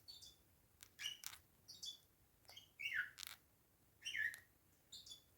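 Bourke's parakeet grinding its beak: short scraping clicks and rasps about once a second, mixed with soft chirps that fall in pitch. Beak grinding is a sign of a relaxed, contented parakeet.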